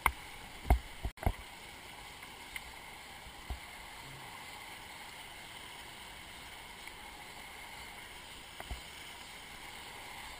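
River rapids rushing steadily past a kayak's bow, with two sharp knocks in the first second and a half and a few fainter ones later.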